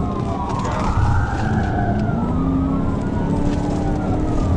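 Police car siren wailing in slow rising and falling sweeps, heard from inside the patrol car over its engine and road noise.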